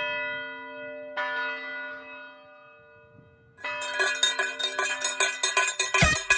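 Church bell tolling: one strike right at the start and another about a second in, each ringing out slowly. From about three and a half seconds in, rapid metallic clanging joins, several strikes a second, over the ringing bell.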